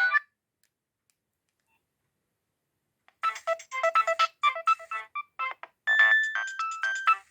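Nokia 6610 polyphonic ringtone: one tune cuts off just after the start, and after about three seconds of silence another begins with quick, short electronic notes, then a few held melody notes near the end.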